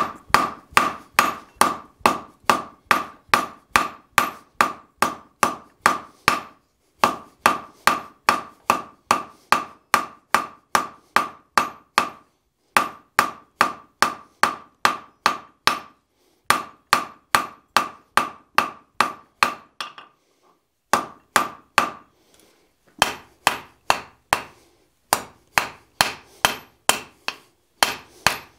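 Hand hammer forging hot steel bar stock on a steel anvil: steady blows at about two and a half a second, each with a ringing note, in runs broken by short pauses. The smith is drawing the bar out into a taper for the awl point of a marking knife.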